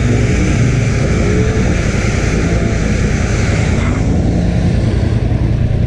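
ATV engine running steadily close by, a constant low drone with a hiss over it that eases slightly about four seconds in.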